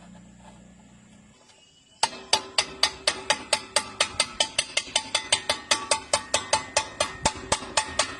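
A low hum fades away over the first second and a half, then about two seconds in a fast, even percussive music beat starts suddenly, about four strikes a second, with a steady pitched tone under it.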